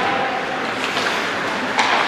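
Ice hockey play in an echoing indoor rink: a steady hiss of skates on the ice, with a few short sharp clacks, the loudest near the end.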